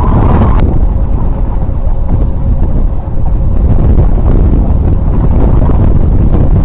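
Strong wind howling across a boat's foredeck and buffeting the microphone: a loud, low, uneven rushing.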